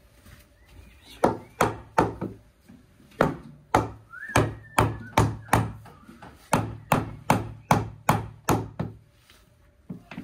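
Rubber mallet tapping a large porcelain paving tile down into its mortar bed: a run of about eighteen dull knocks, two or three a second, with a couple of short pauses.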